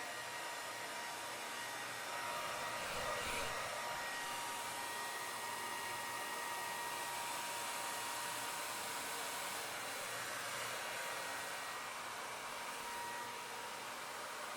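Hair dryer running steadily: a rush of air with a thin, steady whine through it, and a brief swell about three seconds in.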